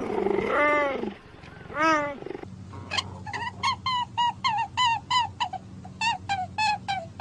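A spotted wild cat gives a few drawn-out, meow-like calls that rise and fall in pitch. About two and a half seconds in, these give way to a fast run of short chirping notes, about four a second, over a steady low hum.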